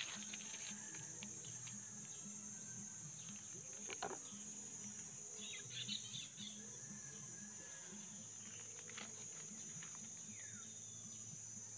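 Steady high-pitched chirring of insects, with a few short rustles and crackles of dry leaf litter as cats move about in it, the loudest about four and six seconds in.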